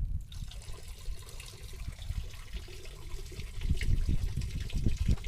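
Water trickling and splashing in a steady hiss, over an irregular low rumble like wind buffeting the microphone.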